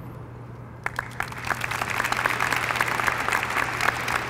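Audience applause, starting about a second in and then continuing as a steady patter of many hands clapping, over a steady low hum.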